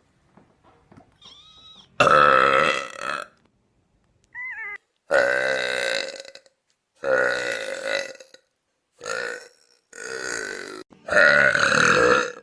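A woman burping loudly, about six long, deep burps one after another with short pauses between them.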